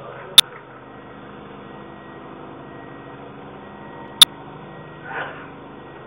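Two sharp, loud cracks of a baseball impact, about four seconds apart, over a steady low hum.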